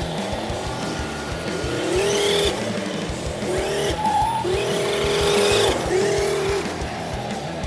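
Simulated engine sound from the RC truck's onboard sound module, revving up in pitch and holding several times as the truck is driven, with music underneath.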